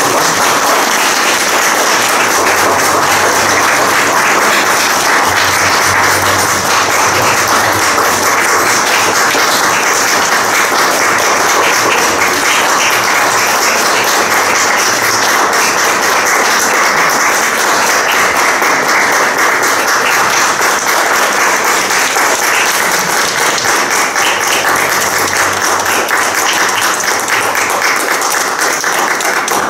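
Audience clapping: loud, sustained applause that eases off slightly near the end.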